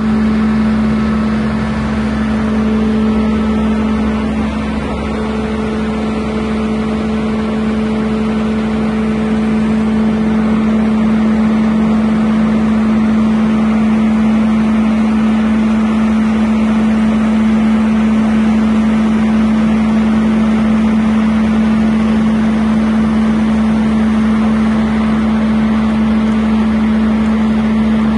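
Aerial ladder fire truck's engine running steadily to drive the extended ladder, a loud constant hum with one strong low tone.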